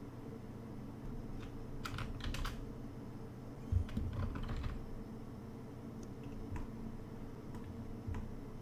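Computer keyboard keys and mouse buttons clicking in small scattered clusters as modelling shortcuts are entered, with a soft knock a little before the middle, over a steady low hum.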